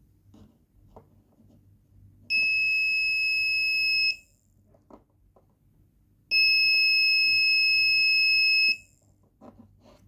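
Arduino-driven buzzer sounding two long, steady, high-pitched beeps, each about two seconds, with a few faint clicks between them.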